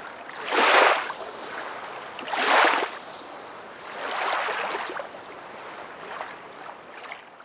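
Rushing noise that swells and fades three times, each swell a second or so long, over a steady hiss. The first two swells are the loudest.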